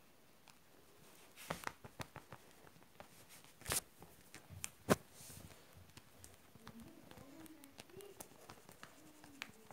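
Rustling and scuffling of a kitten wrestling a plush toy on a rug, with a scatter of soft taps and sharp clicks; the loudest are a short rustle just under four seconds in and a sharp click about five seconds in.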